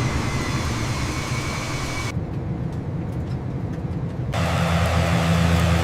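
Aeroplane engine and cabin noise, a steady hiss-and-hum with no speech, that changes character abruptly twice as the sound cuts between shots. The last part carries a steady low engine hum.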